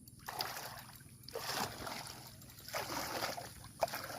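Water splashing in three rough bursts as a freshly hooked fish thrashes at the surface, with a sharp knock near the end.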